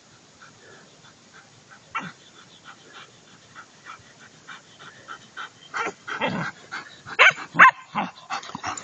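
German Shepherd dogs barking and yipping as they run up. The barks start faint and grow louder and more frequent, with the two loudest about seven seconds in.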